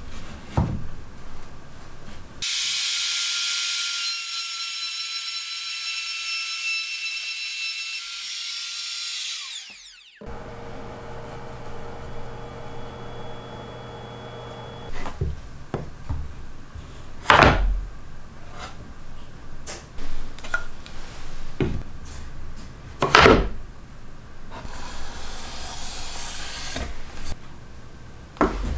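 A power tool's motor runs with a high whine for several seconds, then winds down with a falling pitch. After that come wooden knocks of boards and tools being handled on the bench, two of them louder, and a short spell of rubbing near the end.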